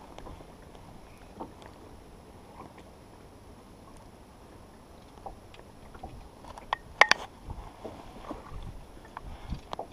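A drifting boat on small waves, water lapping at the hull with light scattered knocks. A brief sharp cluster of clicks about seven seconds in is the loudest thing.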